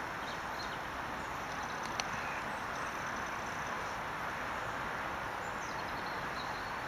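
Steady outdoor background hiss, with a few faint high chirps like distant birds and a single sharp click about two seconds in.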